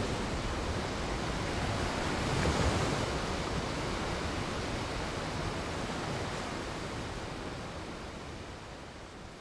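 A steady rushing wash of noise, like surf, fading slowly out as the soundtrack ends.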